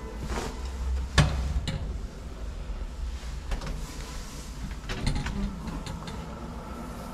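Heavy old wooden doors being pushed open and swinging through, with a sharp knock of wood or latch about a second in, the loudest sound, and lighter clicks and bumps afterwards.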